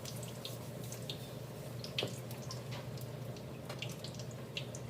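Burrito frying in hot oil in a pan: a steady sizzle with scattered small crackles and pops, over a low steady hum.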